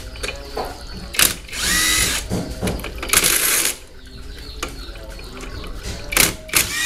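Cordless impact wrench running in short rattling bursts on a motorcycle's clutch centre nut. Two longer bursts of under a second come in the first half, the first with a rising whine as the motor spins up, and shorter bursts follow near the end.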